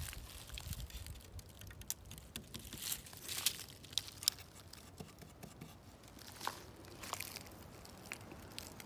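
Dry leaves and twigs crunching and crackling underfoot and against the body in irregular, scattered bursts, with a few sharper snaps.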